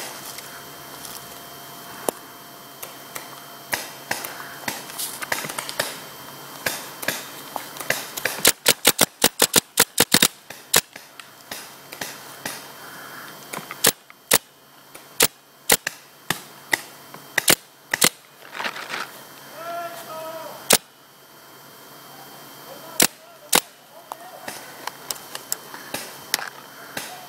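Paintball markers firing: a fast string of more than a dozen sharp pops about eight seconds in, then single shots every second or so, and two more a few seconds later.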